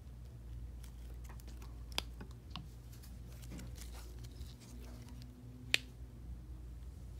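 Small plastic clicks and rustles from gloved hands handling a clear plastic refillable ink tank and its plugs, with two sharper clicks about two seconds in and near six seconds in, over a low steady hum.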